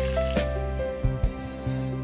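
Gentle background music, one held note after another.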